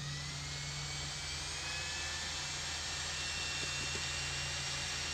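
Cordless drill running under load as its bit bores into a steel trailer flange: a high whine that rises in pitch over the first second or two and then holds steady over a hiss, with a steady hum underneath.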